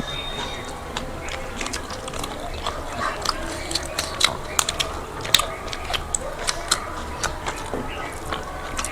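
Giant prawns being peeled by hand, their shells cracking and crackling in irregular sharp clicks, mixed with chewing.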